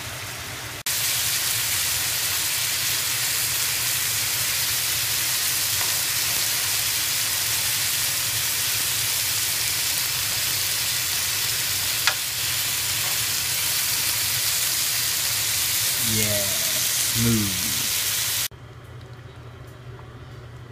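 Seasoned meat chunks sizzling hard in a hot nonstick skillet as they are stirred and turned with a spatula: a loud, even hiss with one sharp click near the middle. The sizzle cuts off abruptly near the end.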